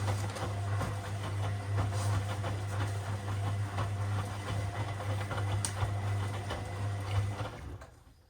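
Washing machine running, a steady low motor hum with many small clicks and rattles from the turning drum, winding down and stopping near the end.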